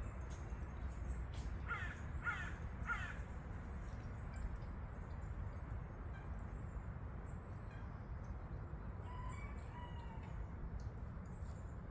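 A bird calls three times in quick succession about two seconds in, with a couple of fainter calls later, over a steady low background rumble.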